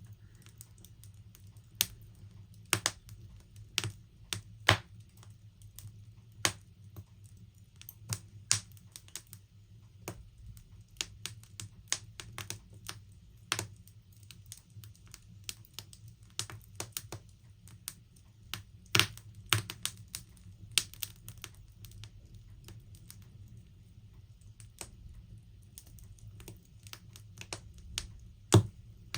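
Logs burning in a log burner, the wood crackling in irregular sharp cracks over a faint steady low hum. The loudest cracks come about five seconds in and again near the end.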